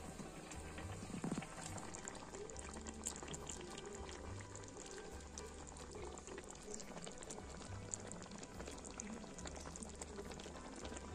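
Mango curry simmering in a pan, its sauce bubbling with many small pops.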